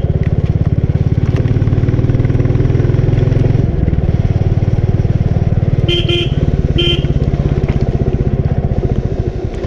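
Royal Enfield Bullet 350's single-cylinder engine running under way with its even beat, the beat changing briefly about four seconds in and easing near the end. Three short horn toots sound about six to seven seconds in.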